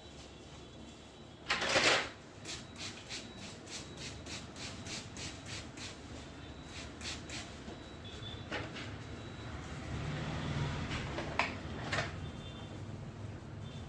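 Hands working a head massage: a brief loud rubbing burst, then a steady run of light taps on the head about three a second for some five seconds, and a few separate taps later.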